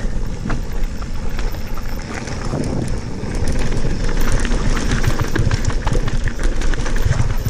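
Santa Cruz Bronson mountain bike rolling fast down a loose gravel and small-stone trail: tyres crunching over the stones with many small clicks and rattles from the bike, over a heavy, uneven low rumble.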